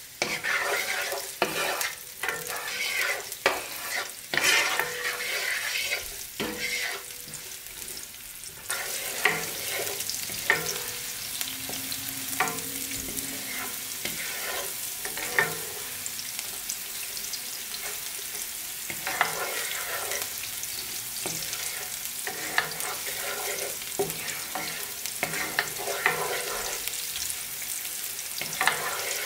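Chopped onion sizzling in oil in a nonstick frying pan while a wooden spoon stirs it, with irregular scrapes and knocks of the spoon against the pan. About nine seconds in the sizzle becomes a steady hiss.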